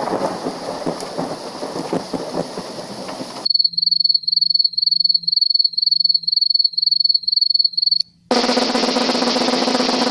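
Thunderstorm sound effect: rain hiss with crackles, cut off about three and a half seconds in. Then a cricket chirping in an even pulse of about three chirps a second, and after a brief gap a snare drum roll.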